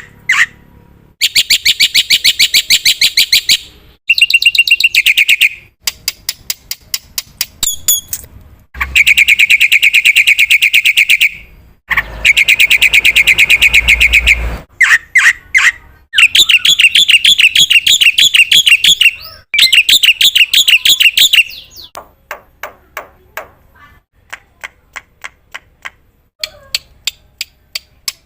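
Black-winged starling (jalak putih) singing: bursts of rapid, chattering trills lasting two to three seconds each, alternating with strings of sharp clicking notes.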